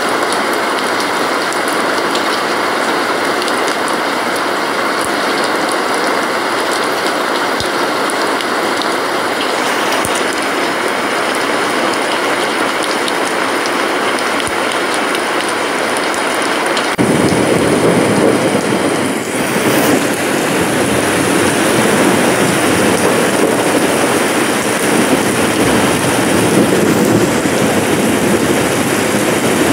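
Steady rain falling, an even dense hiss. A little past halfway it abruptly becomes louder and fuller.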